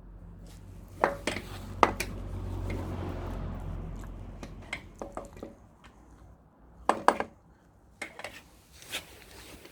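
Metal clinks and knocks of a replacement high-torque starter motor being handled and tried against the engine block, in short clusters about a second in, near two seconds and around seven seconds. A low rumble swells and fades in the first half.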